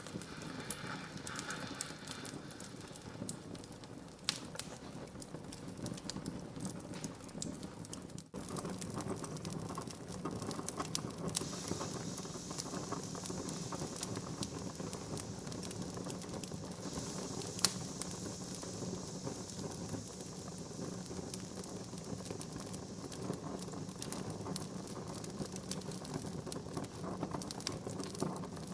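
Wood fire in a fireplace crackling steadily: a constant hiss of burning logs with many small pops and snaps, one sharper pop about two-thirds of the way through. There is a momentary break in the sound about eight seconds in.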